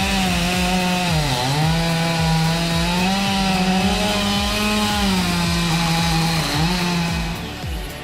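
Two-stroke chainsaw running at full throttle while cutting wood, its high engine note sagging twice as it bogs in the cut and then picking back up. The note stops shortly before the end.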